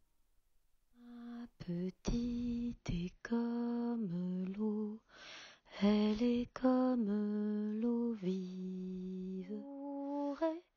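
A lone voice singing a slow tune unaccompanied, holding each note and stepping between pitches, with a few sharp clicks about two seconds in.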